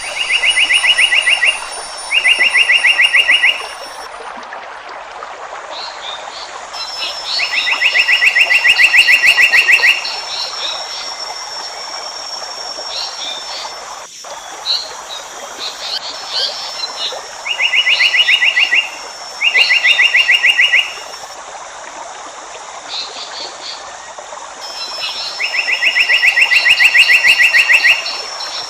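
Wild animal calls: loud bursts of rapid, evenly pulsed trilling, six of them lasting one and a half to three seconds each, mostly in pairs. Under them run a steady high drone and short scattered bird chirps.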